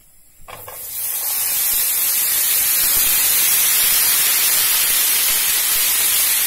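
Raw potato slices sizzling in hot sunflower oil in a frying pan. The sizzle starts about half a second in, swells over the next second and then holds steady and loud.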